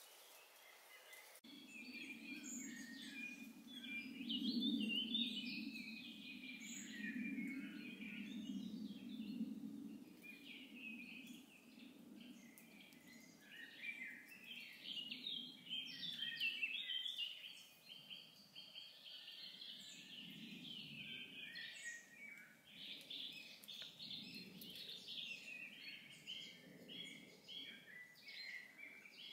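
Woodland birdsong: several songbirds singing in overlapping chirping phrases, with a low steady hum underneath that is strongest in the first several seconds.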